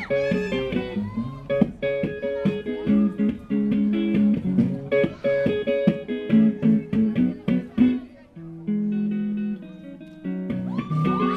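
Solo acoustic guitar played fingerstyle: a plucked melody over bass notes with sharp, crisp attacks. About eight seconds in it drops to a few softer held notes, then picks up again near the end.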